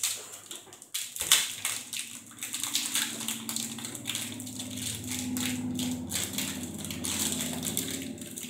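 A small package of trading-card sleeves being torn open by hand: the wrapper crinkles and crackles, with a sharp rip about a second in.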